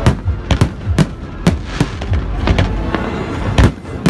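Fireworks display: aerial shells bursting one after another, about one or two sharp bangs a second over a continuous rumble, with a loud bang near the end.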